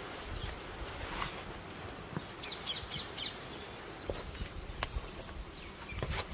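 A bird chirping: a quick run of about five short high chirps a little over two seconds in, over faint outdoor background noise with a few light knocks.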